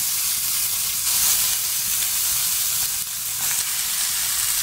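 Steady hiss from a pressure cooker heating on the flame as raw mutton pieces are put into it.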